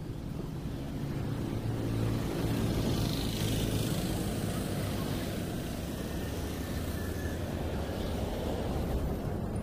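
An engine running with a low steady hum that grows louder about two seconds in.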